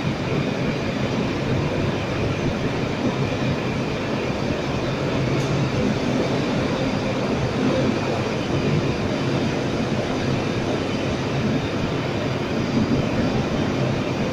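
Plastic film production machinery running steadily: a continuous even machine din with a few faint steady hums.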